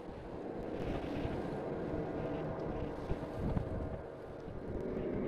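Strong gusty wind of a sandstorm buffeting the microphone and rushing through the trees, a low rumble that rises and falls with each gust.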